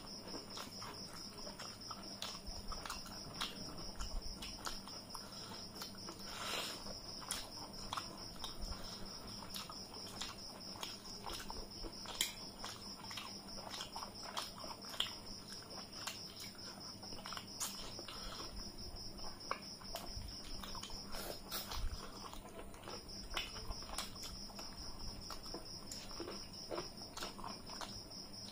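Eating by hand: chewing and mouth smacks, with fingers squishing and mixing rice and curry on metal plates, heard as irregular soft clicks and crackles. A steady high-pitched trill carries on underneath, stopping briefly about three-quarters of the way through.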